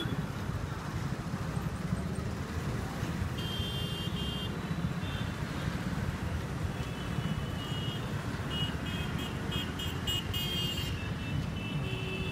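Steady low rumble of a moving vehicle in road traffic. Short, high-pitched tones come once in the first half and then come and go repeatedly through the second half.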